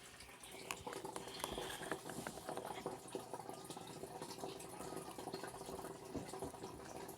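Water in a turtle tank bubbling and trickling steadily, with small drips and ticks and a faint steady hum.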